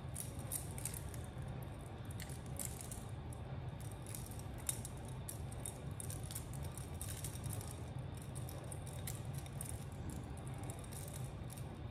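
Small plastic bat-shaped LED covers and thin wire of a battery string light clicking and rattling together in the hands as a tangled strand is worked loose. Light, irregular ticks over a steady low hum.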